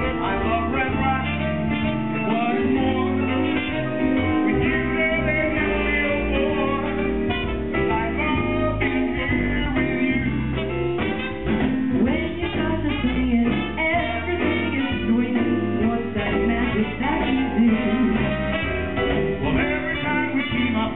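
Live band playing a swing standard, with a vocalist singing at times.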